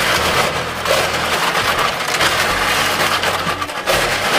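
A large batch of cockles being rubbed and stirred together by hand in a bowl, their shells clattering and scraping against one another in a dense, continuous rattle. This is washing the cockles after their salt-water soak.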